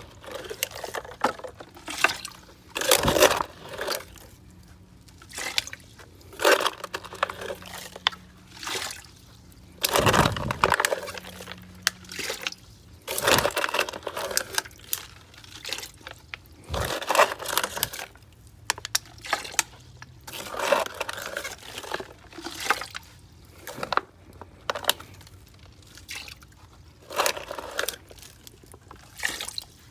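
Water splashing and pouring in short bursts every one to two seconds, as standing water is bailed out by hand.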